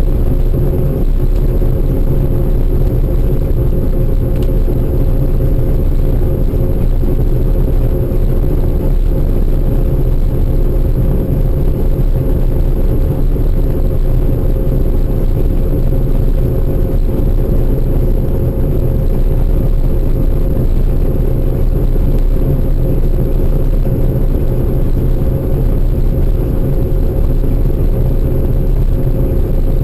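Harvest machinery running steadily: an engine's constant rumble with steady hums.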